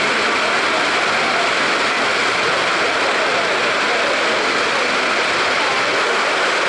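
Heavy rain pouring down steadily on a corrugated metal shelter roof and wet pavement: a dense, even hiss.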